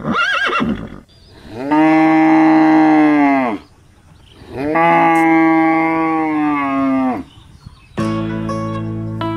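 A cow mooing twice, each moo long and held, about two seconds, and dropping in pitch as it ends. A short warbling call comes just before, and guitar music starts near the end.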